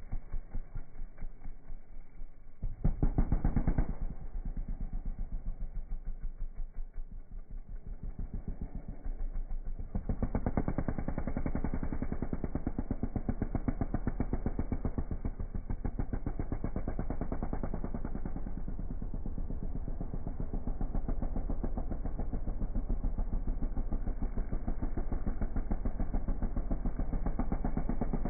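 Sport quad's engine revving hard through a dirt turn and accelerating away, the throttle worked on and off. It is loudest briefly about three seconds in, drops back, then swells again about ten seconds in and keeps running steadily at speed.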